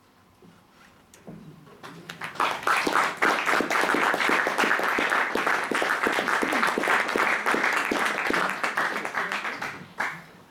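Audience applause. The clapping builds over about two seconds, holds steady, then cuts off abruptly near the end.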